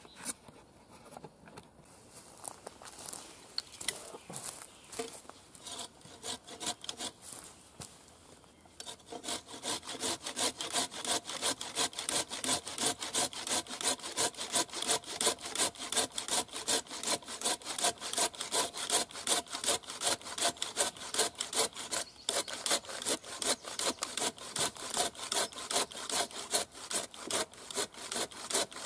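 An Oregon folding pruning saw cutting by hand through a wooden log in push-pull strokes. The strokes are faint and sparse at first; from about nine seconds in they settle into a loud, steady, even rhythm.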